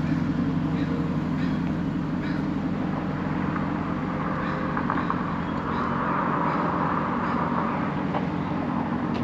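Downtown street traffic: a steady low rumble of vehicles, with one passing closer and swelling in level from about four and a half to eight seconds in.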